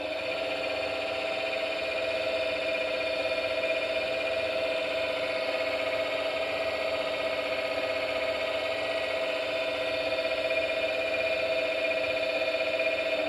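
Sound effect from the ESU LokSound XL V4.0 decoder in a Piko G-scale BR-199 diesel locomotive model, played through the model's loudspeaker: a steady, unbroken multi-tone sound held for about thirteen seconds, then stopping.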